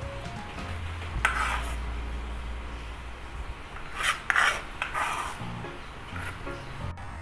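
A cleaver blade scraping chopped spring onions across a plastic cutting board, in two spells of scraping: one about a second in and a longer one about four seconds in.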